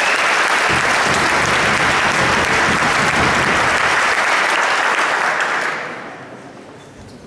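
Audience applauding, dense and steady at first, then dying away about six seconds in.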